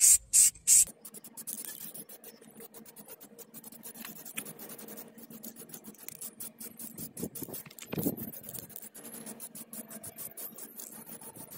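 Aerosol can of Rust-Oleum red caliper paint: a quick run of loud rhythmic rattles, about three a second, as the can is shaken for about a second. Then a quieter, steady spraying hiss with a fine crackle as a second, thicker coat is sprayed onto a brake caliper.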